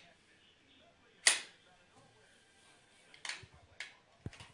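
Toy train set pieces clicking and knocking as they are handled: one sharp, loud click about a second in, then a few softer clicks and dull knocks near the end.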